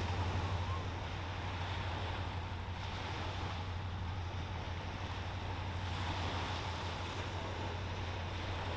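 Wind buffeting the microphone at the waterside, with a steady low hum underneath.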